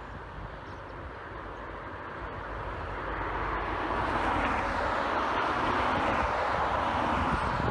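ATR 72 turboprop airliner's engines and propellers running, a steady rushing drone that grows steadily louder from about three seconds in as the aircraft powers along the runway.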